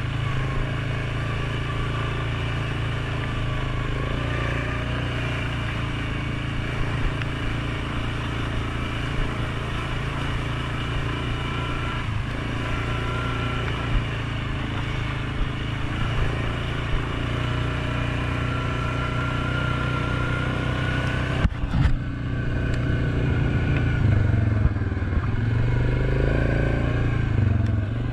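Suzuki KingQuad 750 ATV's single-cylinder four-stroke engine running steadily under way on a trail at around 15 mph. A short knock comes about three-quarters of the way through, after which the engine runs a little louder.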